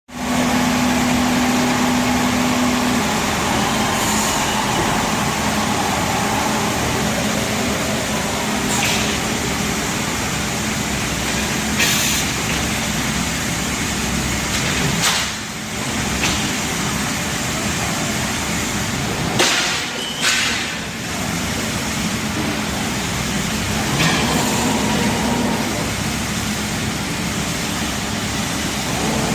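Belt-driven CNC glass cutting machine running, a steady mechanical noise. A steady hum is heard for about the first three seconds, and short sharp hiss-like sounds come every few seconds.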